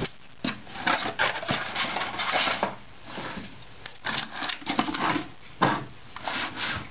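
Rummaging through a kitchen cupboard: things shifted and pushed about, with irregular knocks and scraping rustles.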